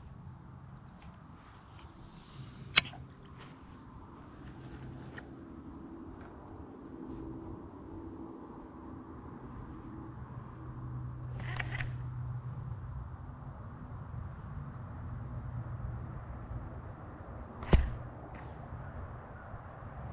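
Outdoor ambience: a faint, steady, high insect drone over a low rumbling noise, broken by two sharp clicks, one about three seconds in and a louder one near the end.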